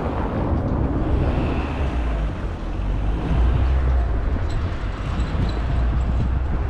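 Steady low rumble of street traffic, strongest in the deep bass.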